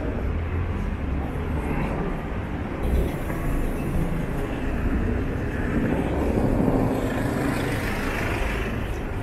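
Street traffic: a steady low rumble of car engines and tyres, swelling a little past the middle as a vehicle passes.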